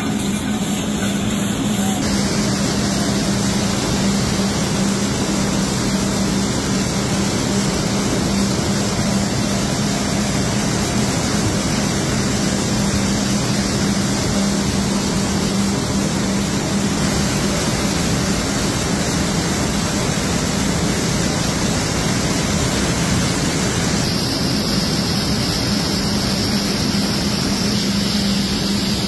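Jute mill machinery running: the steady, dense noise of sliver-feeding and spinning frames at work, over a constant low hum. The texture shifts slightly about two seconds in and again near the end.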